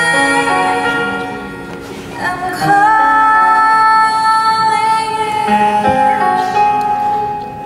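A woman singing a stage show number over instrumental accompaniment, holding one long note from about three seconds in.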